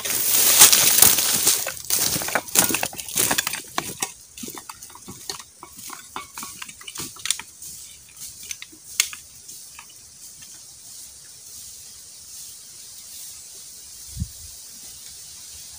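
Footsteps crunching through dry leaf and bamboo litter, loud and dense at first and thinning and fading over the first several seconds as the walker moves away. After that only a faint steady background, with a single low thump near the end.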